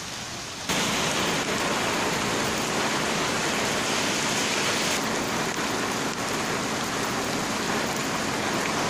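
Heavy rain pouring onto a wet paved street: a steady hiss of drops on the road and standing water, which jumps suddenly louder just under a second in.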